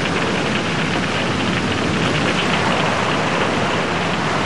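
Steady, loud hiss of rushing, spraying water, as from fire hoses played on a burning ship.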